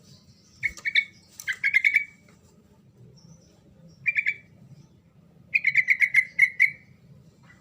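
Yellow-vented bulbul (trucuk) singing in short bursts of quickly repeated notes, four phrases in all, the longest run lasting over a second near the end.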